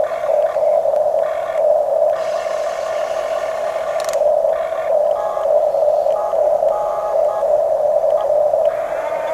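Electric motors of a Huina radio-controlled excavator or bulldozer toy whining in repeated short bursts as the controls are worked, over a steady electric hum.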